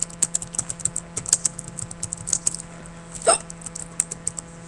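A single loud hiccup about three seconds in, a quick sound that drops in pitch, over a run of quick clicks from keys being typed on a computer keyboard.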